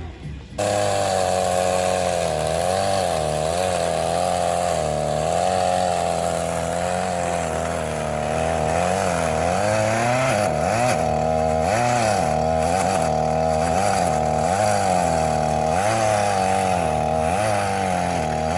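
Gas chainsaw carving a block of red elm, its engine pitch rising and falling over and over as the cut loads and frees the chain. The sound cuts in abruptly about half a second in.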